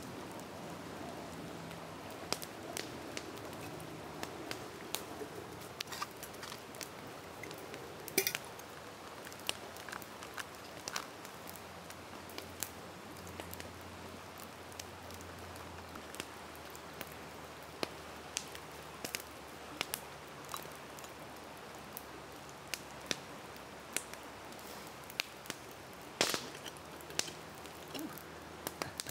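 Wood campfire crackling: irregular sharp pops and snaps over a steady low hiss, with a louder snap about eight seconds in and another near the end.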